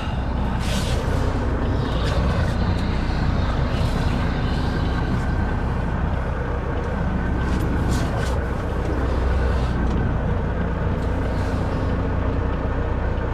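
Semi-truck's diesel engine running steadily while the truck is lined up with a loading dock, with a few brief hisses about a second in and again about eight seconds in.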